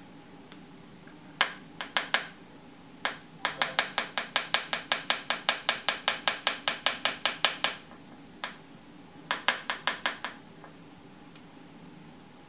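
A plastic jar of loose baking powder knocked upside down against a hard clear tray to shake the powder out: runs of sharp clicks, about four to five taps a second, the longest lasting some four seconds.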